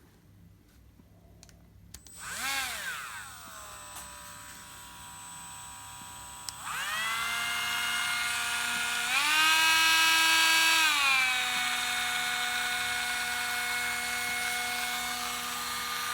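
Small electric power tool motor whining. It starts up about two seconds in and settles. It then spins up again, goes up in pitch for a couple of seconds past the middle, and drops back to a steady run.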